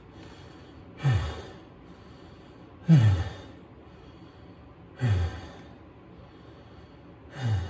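A man's heavy sighing exhalations, four of them about two seconds apart, each a short breathy breath falling in pitch: catching his breath after hard physical effort.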